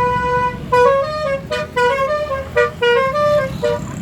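Basuri telolet bus horn, a multi-note melodic horn, holding one note and then playing a quick tune of short notes stepping up and down in pitch. A low engine rumble runs underneath.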